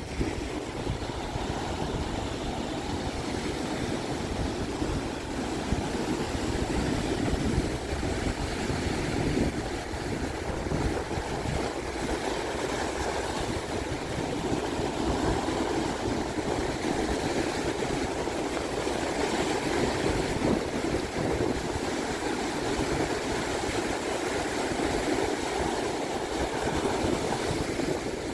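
Pacific Ocean surf washing onto a sandy beach, a steady rushing wash that swells and eases without distinct crashes, with wind rumbling on the microphone underneath.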